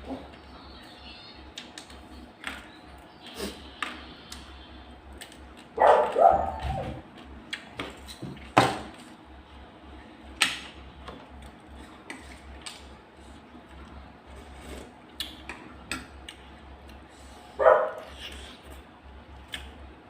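A dog barking: a short run of barks about six seconds in and a single bark near the end. Between them come many small clicks and taps of eating, with utensils against a plate.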